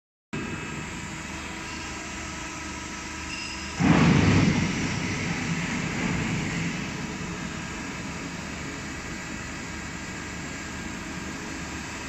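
Steady hum of industrial machinery running, with several steady tones. About four seconds in, a louder rushing surge rises suddenly and dies away over the next few seconds.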